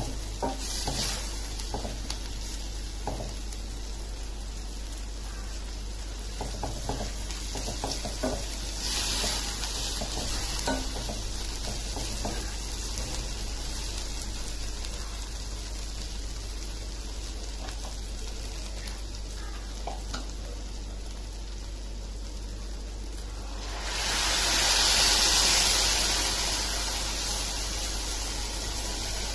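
Spiced onion, tomato and mutton masala sizzling in oil in a stainless steel pan while a silicone spatula stirs and scrapes through it, with scattered light clicks. Near the end, stock from the pressure cooker is poured in, making a louder rushing sizzle that then eases.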